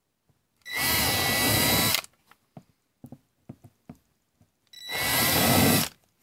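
Cordless drill/driver run in two short bursts of about a second each, driving stainless fasteners. Each burst opens with a quick rising motor whine. Light handling clicks come between the bursts.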